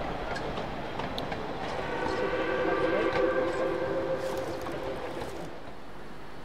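Rio Grande K-28 steam locomotive's whistle blowing one long chord of several tones together for about three and a half seconds, starting about two seconds in, over the rumble and wheel clicks of the moving train.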